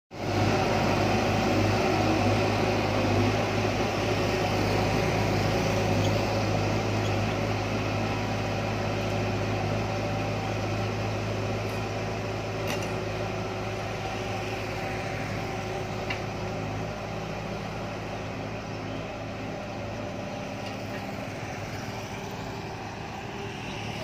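Shantui crawler bulldozer's diesel engine running steadily under load as it pushes dirt, its drone slowly fading as the machine moves away.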